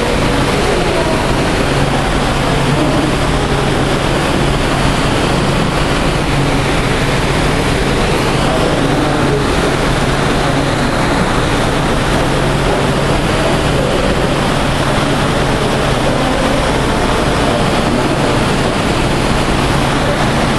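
Steady rushing of circulating water with a low, constant hum underneath, from an aquarium's pumps and filtration.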